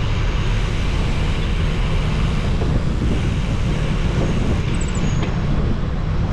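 Wind buffeting the microphone of an action camera on a moving bicycle, with tyre rumble on the road: a steady, heavy low rumble.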